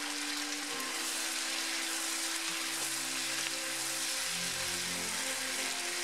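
Chicken and zucchini stir-frying in a hot nonstick pan, a steady sizzle as the pieces are turned with a wooden spatula. Soft background music with held notes plays underneath.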